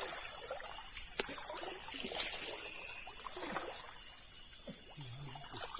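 Water trickling and sloshing in a river at night, under a steady high chorus of night insects pulsing about twice a second.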